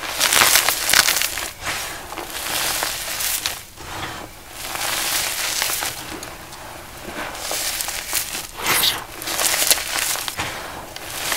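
Dry powder blocks being crushed, crunching and crumbling in irregular bursts. The loudest bursts come in the first second and again near the end.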